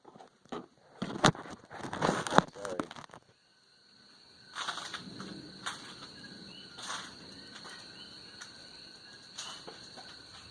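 Rustling and sharp knocks as a phone is handled and set down, then night ambience: a steady high insect whine with small chirping calls and a few faint, short pops.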